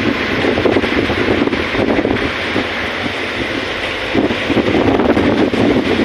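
Wind buffeting the microphone on a boat underway at sea, a loud, gusting rush mixed with the wash of water, rising and falling without a break.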